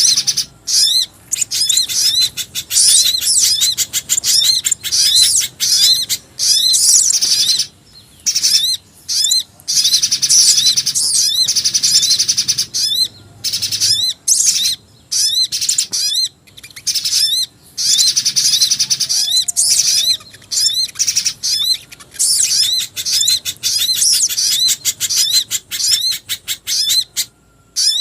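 Bird-lure recording of a spiderhunter (pijantung gunung) mixed with black-winged flycatcher-shrike (jingjing batu) calls: fast, loud runs of short, high, rising chirps, repeated over and over with brief breaks between the runs.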